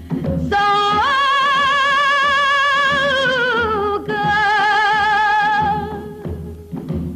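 Female fado singer holding long wordless notes with strong vibrato: one steps up, then slides down, and a second note is held after it. Beneath the voice runs instrumental accompaniment with a low, regular beat that comes through most at the start and near the end.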